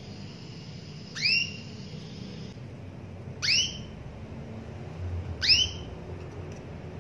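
Female domestic canary giving three calls, about two seconds apart, each a short whistle sweeping quickly upward in pitch. This is the call a hen canary uses to call a male.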